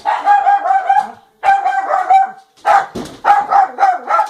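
A dog barking in rapid runs of short barks, three bursts of about a second each with brief pauses between. It is reacting to a door being closed.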